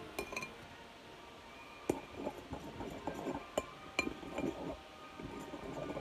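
Mixing slime in a hard container: a utensil clinks sharply against it several times, with brief ringing, and soft wet scraping and squishing sounds in between.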